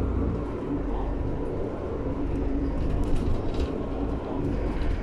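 Steady rumble and running noise of a metro train in motion, heard from inside the carriage.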